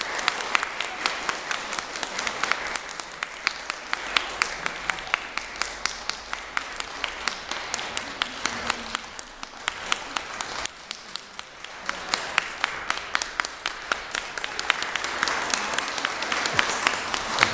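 Audience applauding, a dense patter of hand claps that eases briefly past the middle and swells again near the end.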